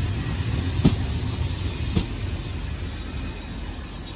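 SNCB passenger train carriages rolling slowly past with a steady low rumble from the wheels on the rails, and two sharp knocks about a second apart as wheels pass over rail joints. A faint high squeal, likely from the brakes, comes in near the end as the train slows.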